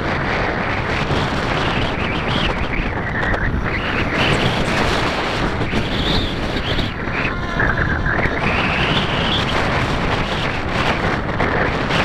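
Wind buffeting the microphone. Behind it is the faint whine of a SAB Goblin 770 electric RC helicopter in flight, its pitch sliding up and down several times in the middle of the stretch.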